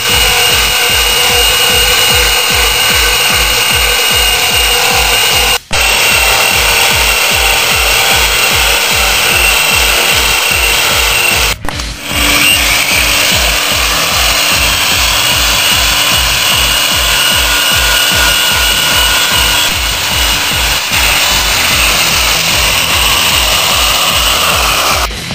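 Metabo SE 12-115 burnishing machine running under load, its drum grinding rust off steel plate and then the face of concrete blocks, a steady loud rasping with a high whine. Background music with a steady beat runs underneath. The sound cuts out briefly twice, about 6 and 12 seconds in.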